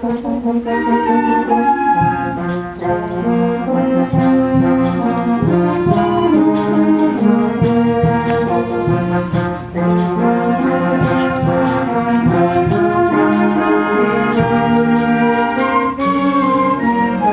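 Youth concert band playing, brass to the fore, over regular drum strikes, with a cymbal crash about 16 seconds in.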